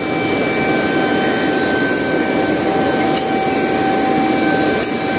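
A motor running with a steady whine, several fixed tones over a rushing noise.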